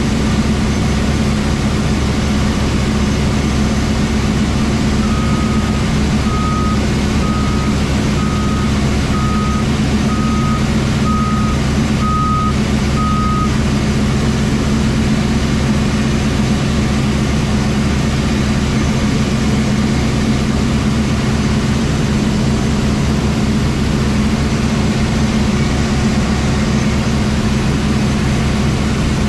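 Combine harvester's diesel engine running steadily under load. From about five seconds in, an electronic beeper gives nine evenly spaced short beeps, a little under one a second, then stops.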